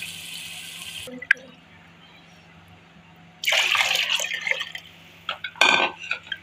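Water poured from a jug into a pot of yogurt and gram-flour batter: a splashing pour starting about three and a half seconds in and lasting over a second, then a short, louder splash as the mixture is stirred with a spatula. A steady hiss at the start cuts off about a second in.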